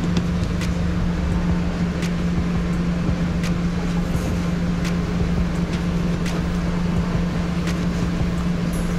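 A steady, loud mechanical hum with a rushing noise underneath. Over it, a knife taps sharply against a cutting board every second or so as cooked wagyu beef strips are sliced into chunks.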